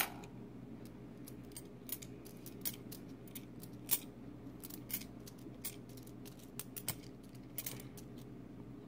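Silver dimes clicking and clinking against each other in light, irregular taps as they are picked through and handled one by one, over a faint steady low hum.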